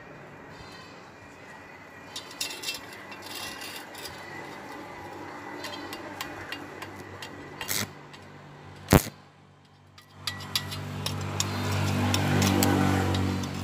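Light metal clinks and taps as thin square steel tubes are handled and set in place for stick welding, with a sharp knock about nine seconds in. A low steady hum builds over the last few seconds.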